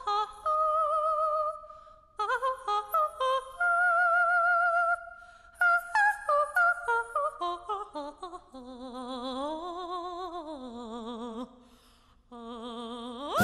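Unaccompanied female soprano singing an operatic cadenza: held notes with vibrato, quick staccato runs of short separated notes, then a slide down to low notes in the last few seconds.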